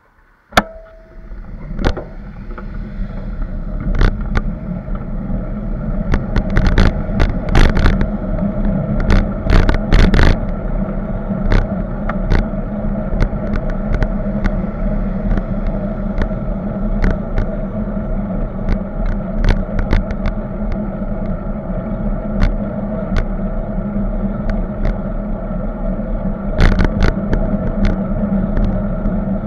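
Wind rushing over a bicycle-mounted camera's microphone as the bike rides off along a road, a steady loud rumble with many sharp clicks and knocks scattered through it. It starts with one sudden loud click about half a second in, after near silence.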